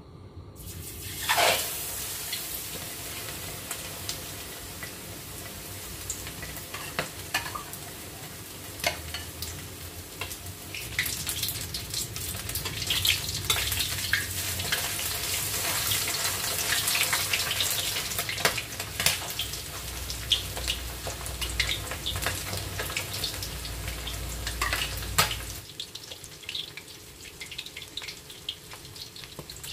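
Battered frog pieces deep-frying in hot oil in a steel wok, with a steady sizzle and many sharp crackles and pops. The sizzle starts suddenly as the pieces go into the oil and is loudest about a second and a half in. Near the end the sizzle drops off abruptly to a quieter crackle.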